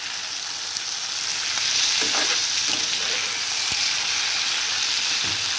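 Oil sizzling steadily under potato and pointed gourd pieces frying with freshly added cumin-ginger paste, as a spatula stirs and scrapes through them in the pan, with one light knock about two-thirds through. This is the masala being fried down (koshano).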